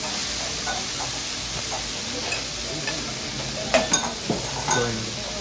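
Kobe beef steak pieces sizzling steadily on a steel teppanyaki griddle, with a few sharp clinks of the chef's metal utensils against the griddle about two-thirds of the way through.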